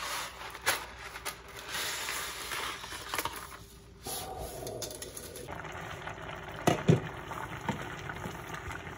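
Cardboard pasta box rustling and dry fettuccine crackling as it is tipped into a pot of boiling milk. After an abrupt change the sound settles to a quieter steady hiss, with two sharp knocks later on.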